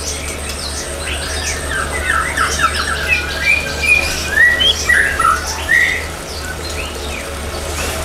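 Small songbirds in an aviary calling over one another: many short chirps and squawks that rise and fall in pitch, busiest through the first six seconds and thinning out near the end, over a steady low hum.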